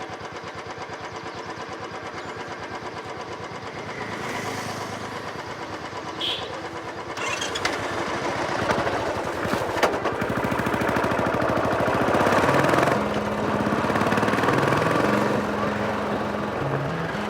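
Motorcycle engine idling with a steady pulse, then revving and getting louder as the bike pulls away, easing off slightly after a peak. Music fades in near the end.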